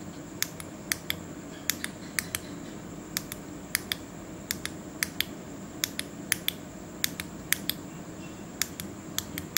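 Small tactile push-button switches on a breadboard clicked repeatedly, sharp clicks mostly in quick pairs, about a dozen times at an uneven pace. Each press clocks a 0 into a 74HC595 shift register.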